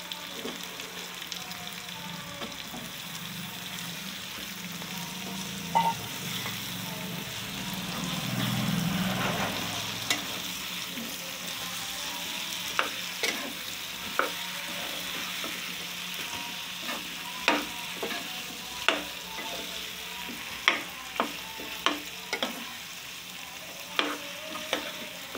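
Pumpkin cubes sizzling in hot oil and masala in a kadhai while a steel ladle stirs them, with sharp clicks and scrapes of the ladle against the pan that come more often in the second half. A low rumble swells about eight to ten seconds in.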